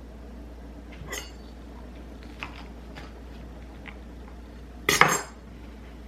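Dishes and cutlery clinking during kitchen food preparation: a ringing clink about a second in, a few light clicks, then a louder clatter about five seconds in.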